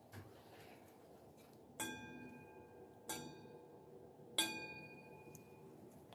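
Three separate ringing, piano-like notes, each struck once and dying away over about half a second, about a second and a quarter apart. The notes come from an unseen source in an abandoned house, and the explorer doubts they are really a piano.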